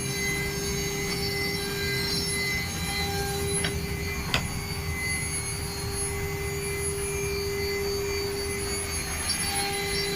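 CNC router cutting a design: a steady high spindle whine over a low rumble, with two sharp clicks about four seconds in.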